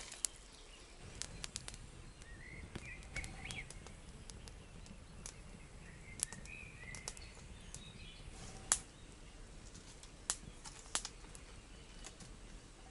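Wood campfire crackling, with irregular sharp pops; the loudest is about two-thirds of the way through. Small birds chirp faintly now and then.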